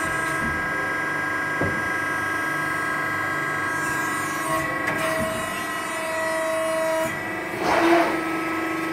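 CNC press brake running, a steady machine hum with several constant whining tones. A second, higher whine comes in about halfway and stops a couple of seconds later, and a short hiss near the end is the loudest sound.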